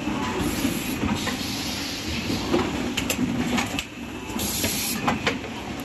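Automatic rigid-box making machine running: a steady mechanical clatter with sharp clicks from its moving parts, and a short hiss of compressed air about four and a half seconds in.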